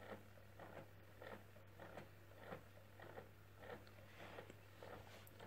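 Motorised baby swing running: faint soft swishes, evenly about every 0.6 seconds, over a steady low hum.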